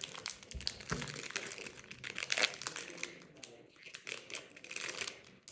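Foil trading-card booster pack wrapper crinkling as it is handled and torn open, a dense crackle that stops suddenly at the end.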